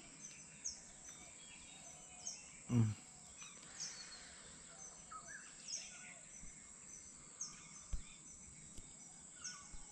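Birds calling outdoors: a short, high, falling chirp repeats every second or two over faint background birdsong. A man's voice makes one brief sound about three seconds in, and there is a soft low thump near eight seconds.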